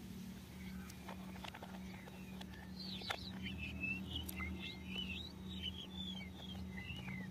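Small birds chirping in quick, repeated short calls, busiest from about three seconds in, over a steady low hum. A few light clicks of hard plastic toy parts being handled.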